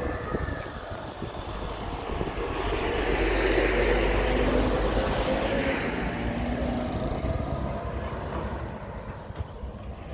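Semi-trailer lorry driving past on the road, its engine and tyre noise swelling to a peak a few seconds in and then fading away.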